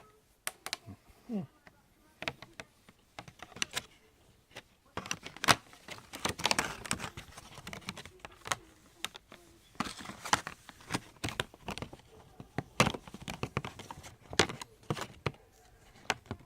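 Retail packaging being handled as a cable adapter is worked back into it: irregular clicks and knocks with bursts of crinkling, rustling plastic, heaviest from about five to eight seconds in and again around ten seconds.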